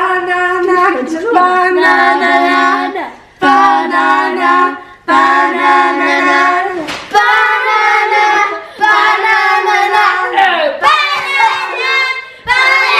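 Children singing a song together, in long held notes with short breaks between phrases.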